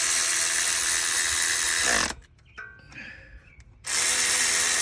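Cordless electric ratchet running in two long spells, tightening the AC compressor's mounting bolts. The motor's whir drops in pitch as it stops about two seconds in, with light clicks in the short pause before it starts again near the end.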